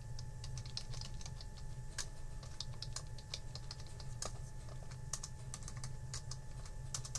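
Typing on a computer keyboard: a quick, irregular run of keystrokes over a low steady hum.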